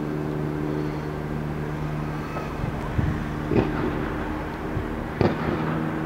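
Fireworks going off: a few sharp bangs, about three seconds in, again half a second later and once more about five seconds in, over a steady low mechanical hum.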